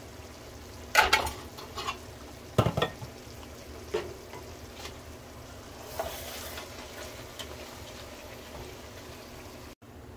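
A spoon stirring chicken, sausage and rice in a pot of jambalaya cooking in stock, with a few sharp clinks and scrapes against the pot over a steady low simmer.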